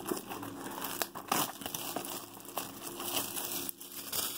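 Plastic shrink wrap on a trading card box being torn and crinkled off by hand, in irregular crackling bursts.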